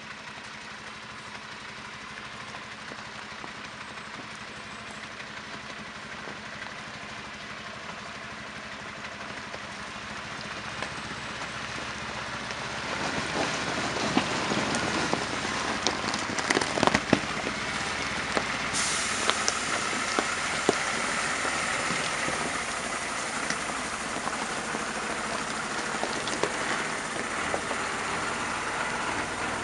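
MAN fire truck driving slowly down a gravel track close by, its diesel engine running. The sound grows louder as it nears and is loudest from about 13 s in, with a few sharp clicks a little after.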